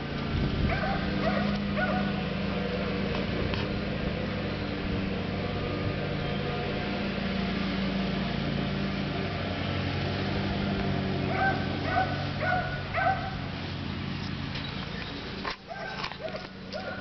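Short, high animal calls, repeated in quick runs of three or four, over a steady low hum.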